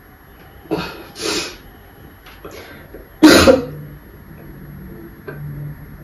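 A man coughing into a towel, a staged coughing fit: two coughs about a second in, a few small ones, then the loudest cough about three seconds in.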